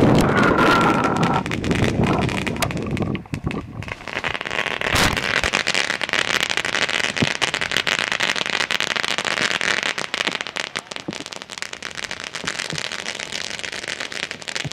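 Ground firework fountain spraying sparks, hissing with dense crackling throughout. It has a loud rush and a brief high whistle near the start.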